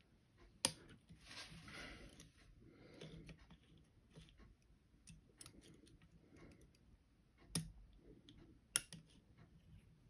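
Small metallic clicks and scrapes of lever-lock picking tools working inside a lever padlock, with three sharper clicks, one just over half a second in and two close together near the end, and a scratchy rustle around one to two seconds in.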